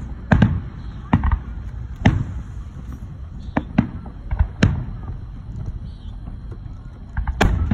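Aerial firework shells bursting in a string of sharp bangs, irregularly spaced, with several in quick succession near the end.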